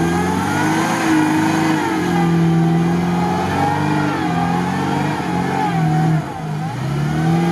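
IZh-2125 Kombi's four-cylinder petrol engine revving hard under heavy load as the car climbs through deep mud, its pitch rising and falling with the throttle and dipping briefly a few times.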